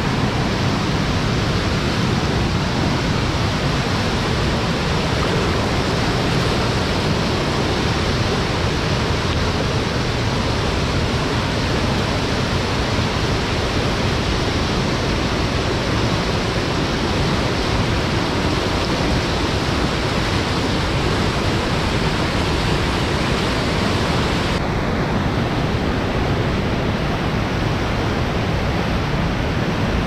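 River rapids rushing and churning over rocks: a steady, loud roar of water.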